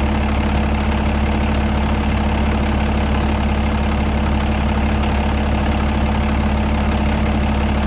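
Peterbilt 389 semi truck's diesel engine idling steadily.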